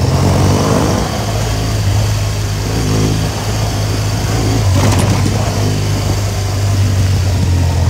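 Motorcycle engine running steadily as the bike rides along, with wind noise over the microphone and a single click about five seconds in.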